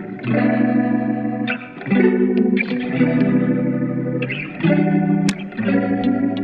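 Background music: electric guitar chords played through chorus and effects, changing every second or two.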